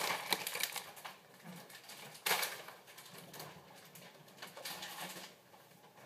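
Scattered light clicks and knocks of someone moving about and handling things in a kitchen, with one sharper knock a little over two seconds in.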